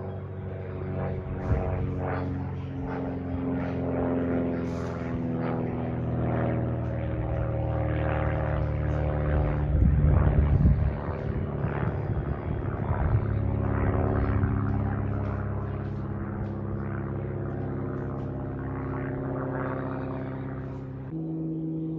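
Propeller-driven light aircraft passing overhead: a steady engine drone that grows louder to a peak about halfway through, its pitch easing downward as it passes, then slowly fades.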